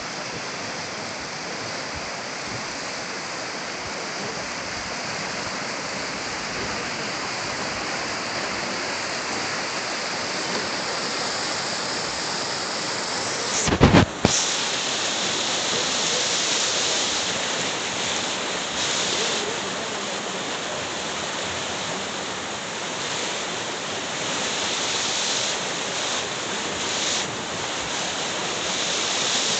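Shallow mountain river rushing steadily over rocks and stones. A brief loud bump about halfway through.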